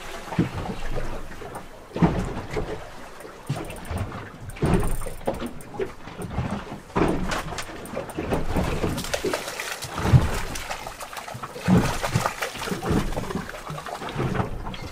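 Water slapping and knocking against the hull of a small boat on choppy water, in irregular surges with a few sharper knocks, mixed with wind noise.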